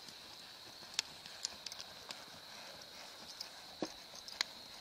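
A ridden horse moving across a dirt arena: irregular sharp hoof clicks and thuds, the loudest about a second in and near the end, over a faint steady high tone.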